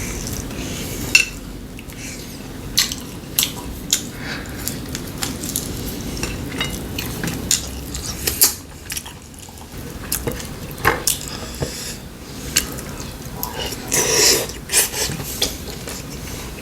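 Cutlery clinking and knocking against bowls and dishes while eating, in scattered sharp clicks, with a longer, louder clatter near the end.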